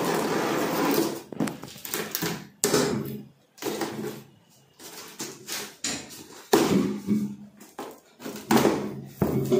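Scissors slitting the packing tape along a cardboard box's top seam, with the cardboard being handled. A long tearing scrape opens it, followed by short scrapes, rustles and a few knocks against the box.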